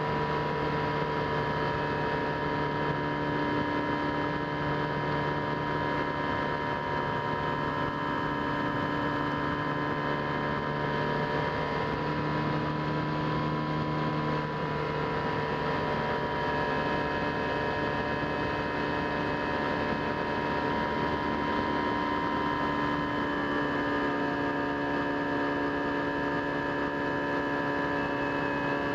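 Brushless electric motor and 13-inch propeller of an RC airplane running steadily in flight, a continuous hum of several steady tones heard from an onboard camera. The lower tones shift slightly in pitch about halfway through.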